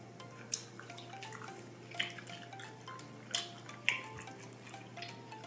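Soft background music, a plinking chime-like melody of short stepping notes, broken by a few sharp clicks about half a second, two, three and a third and four seconds in.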